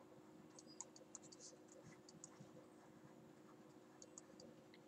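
Near silence with faint clicks and scratches of a stylus writing on a tablet screen: a cluster of quick taps about a second in, and a few more near the end.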